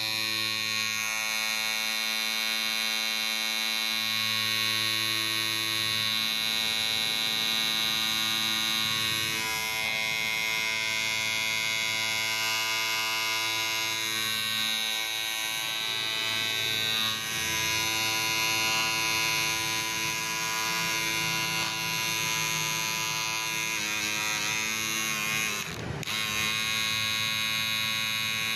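Electric hair clipper running with a steady buzz, its tone shifting slightly a few times, with a brief dip about 26 seconds in.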